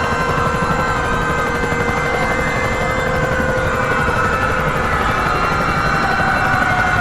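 Helicopter rotor noise with several sirens wailing over it, their tones slowly sliding in pitch.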